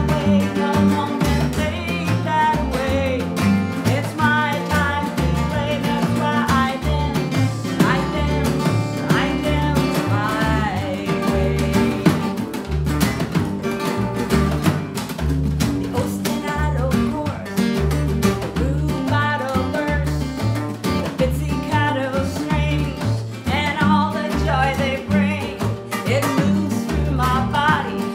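A small band playing a song live: acoustic guitar, a second guitar, upright bass and drum, with a woman singing.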